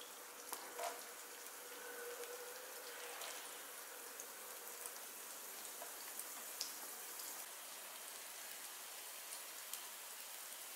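Oil sizzling in a frying pan as food is sautéed: a steady hiss scattered with small pops and crackles.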